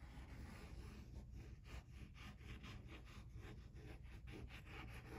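Faint squeezing of a plastic glue bottle as glue is drawn out in lines, with soft irregular crackles; the bottle is hard to squeeze.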